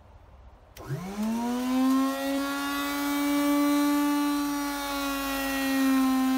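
Novital Davide 4V electric grain mill switched on with a click: its motor spins up in a rising whine over about a second, then runs at a steady pitch with the hopper empty.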